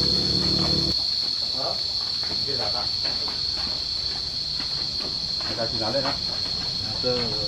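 Cicadas droning in the trees with one steady, high, unbroken buzz. A low hum stops about a second in, and faint voices come and go.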